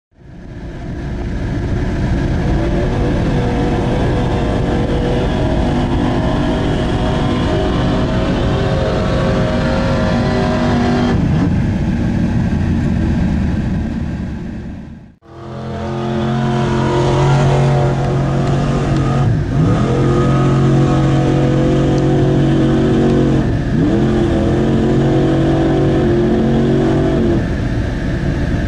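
Lifted mud-bog pickup truck's engine running hard as it drives through a mud pit, a steady loud drone. The sound fades out and back in about halfway. In the second half the engine pitch dips and climbs back up twice.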